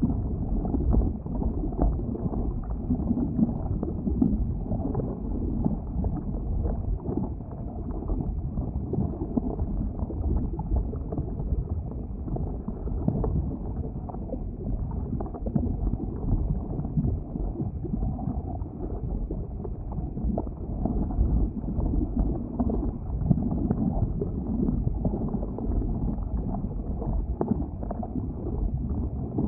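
Erupting lava vent: a continuous low rumble with an uneven, churning texture.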